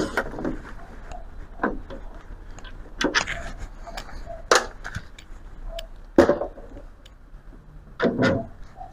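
Scattered clicks and knocks of plastic trim and small hand tools as a pickup's headlight bezel and turn-signal lights are worked loose, with about half a dozen sharper snaps and knocks among lighter taps.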